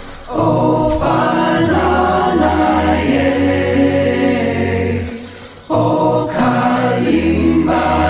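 Background music: a choir singing a chant-like song over a steady low tone, with a short break between phrases about five and a half seconds in.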